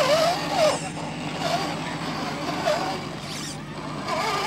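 Whine of a radio-controlled scale crawler's electric motor, rising and falling in pitch in short bursts of throttle, over a steady low hum.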